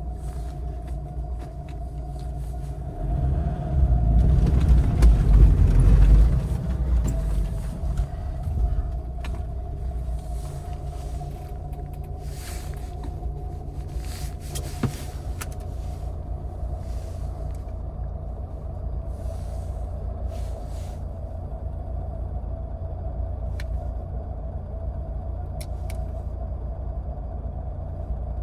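Lada Niva 4x4's 1.7-litre four-cylinder petrol engine and drivetrain heard from inside the cabin while driving in low-range gearing: a steady low rumble with a thin whine over it. The rumble rises for a few seconds about three seconds in, then settles back to an even drone.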